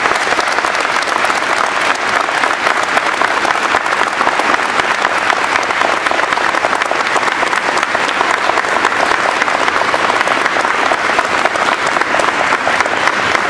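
A large crowd applauding steadily, many hands clapping at once in a dense, even patter.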